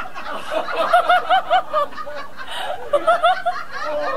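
Someone laughing in quick 'ha-ha-ha' pulses, two bursts about two seconds apart.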